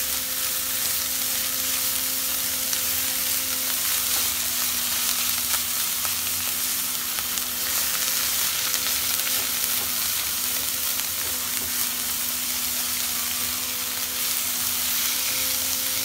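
Julienned carrot, capsicum and spring onion sizzling in oil in a nonstick wok as they are stirred and tossed with a silicone spatula: a continuous frying hiss. A faint steady hum runs underneath.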